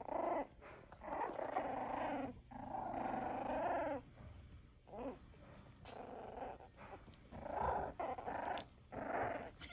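Four-week-old F1b Cavapoo puppies play-growling at each other: a string of about seven high, pitched growls, the two longest lasting over a second each, with short gaps between.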